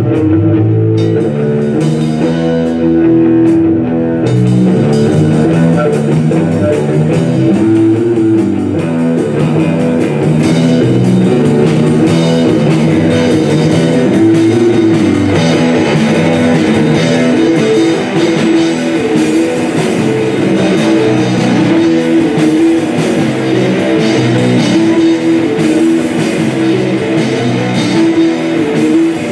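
A rock band playing live: electric guitar, bass and drum kit together in a full, steady instrumental passage.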